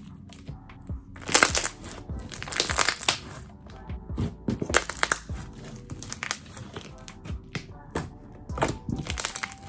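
Thick, gummy slime being poked, pressed and squished by hand, giving bursts of wet crackling and popping clicks, with the loudest crackles in four spells.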